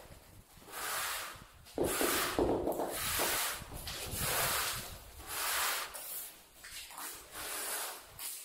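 Rough scraping and rubbing strokes, several in a row with short gaps, of tile-setting work on freshly combed tile adhesive.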